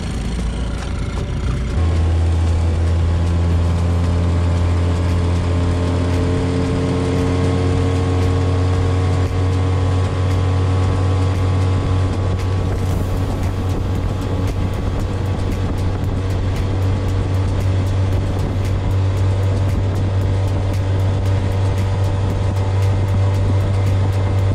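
Honda 7.5 hp four-stroke outboard motor opened up about two seconds in and running hard for a speed test, its pitch climbing slowly as the boat gathers speed, then holding steady.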